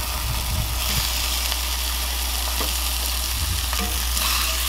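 Raw ground-beef patties sizzling in olive oil in a hot cast iron skillet, a steady hiss of frying. The sizzle gets louder about a second in, as a second raw patty goes into the pan.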